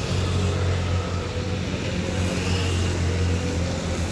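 A bus's diesel engine idling steadily, a low even drone.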